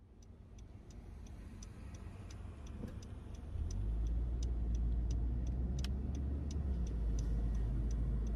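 Inside a Honda Civic: the turn-signal indicator clicks steadily, about three clicks a second, over the car's low engine and road rumble, which gets louder about three and a half seconds in.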